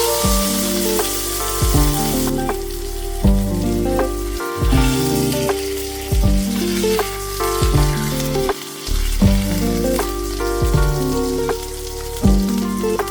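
Oil sizzling and frying in a pan, loudest in the first two seconds, under background music with a beat of deep drum hits.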